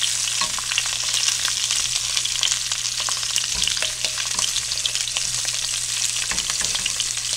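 Italian sausages searing in hot oil in a skillet: steady sizzling full of small crackles and spatters. Silicone-tipped tongs turn them over, with a couple of soft knocks against the pan.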